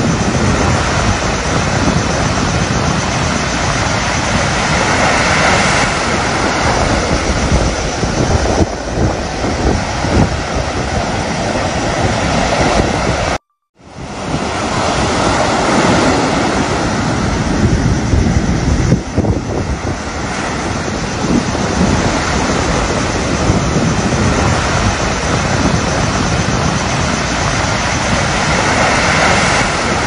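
Surf breaking and washing up a sandy beach in a steady roar that swells and eases with each wave, with wind rumbling on the microphone. The sound cuts out abruptly for about half a second halfway through.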